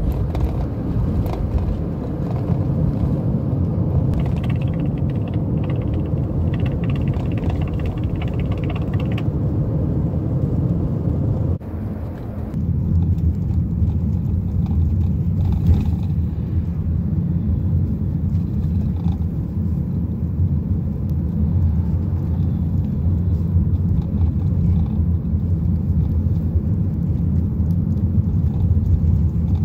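Road noise inside a moving car: a steady low rumble of tyres and engine. About twelve seconds in it dips briefly, and after that the rumble is deeper.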